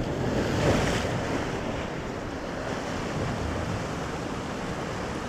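Ocean surf breaking and washing over shoreline rocks: a wave swells up before about a second in, then its wash slowly fades away.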